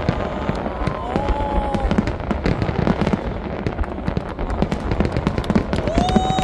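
Fireworks display going off in a continuous rapid crackle of many small bangs, with no pause.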